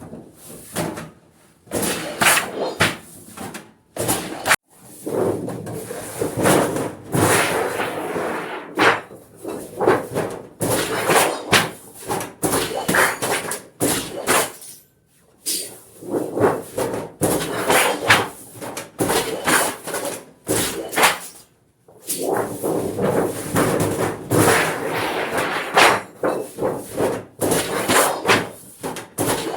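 Sheet-metal cutting machine working tin, with repeated irregular clanks and slams and short lulls between runs of strokes.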